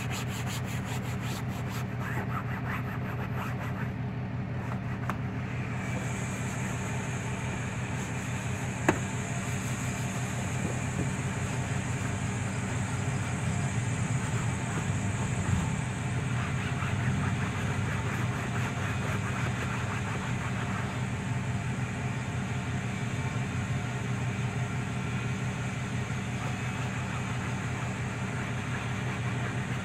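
A steady low engine hum, with a single sharp click about nine seconds in.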